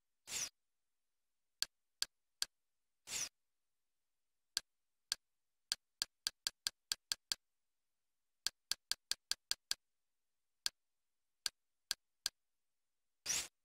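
Kodi menu navigation sound effects: short clicks, one per cursor step. They come singly and in two quick runs at about five a second while the menu is scrolled. Three slightly longer sounds, near the start, about three seconds in and at the end, go with selecting or going back.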